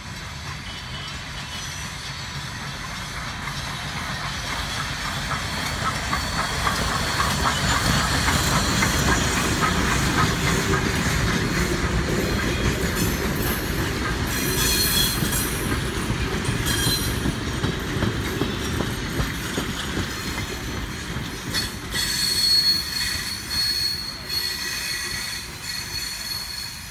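Everett Railroad No. 11, a 2-8-0 steam locomotive, passing at close range with its passenger coaches. The sound builds to its loudest about a third of the way in as the engine goes by. The coaches' wheels then clatter along the rails and squeal near the end.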